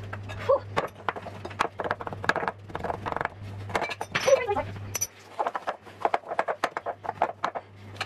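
Wooden spoon beating butter and caster sugar in a glass mixing bowl: a fast, irregular run of knocks and scrapes against the glass as the mixture is creamed.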